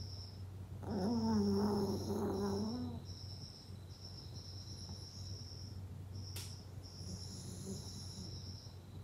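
Sleeping Maltese puppy letting out a drawn-out, wavering groan about a second in, lasting about two seconds, over a faint, high, pulsing cricket-like chirping.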